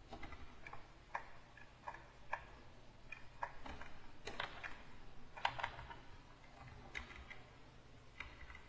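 Light, irregular clicks and taps of a computer keyboard and drawing stylus as a digital painter works, about two a second and unevenly spaced, with a busier, louder cluster around the middle.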